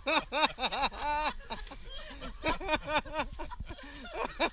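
High-pitched giggling: a rapid run of short laughs, each rising and falling in pitch.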